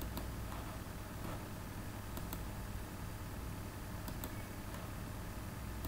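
Steady low hum and room hiss from a computer-recording setup, with about five small, sharp clicks scattered through.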